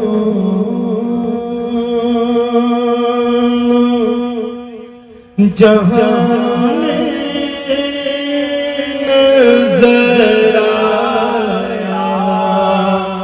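A man chanting an Urdu naat in long, slow melodic phrases over a steady held hum. The voice fades away about four seconds in and comes back strongly about a second and a half later.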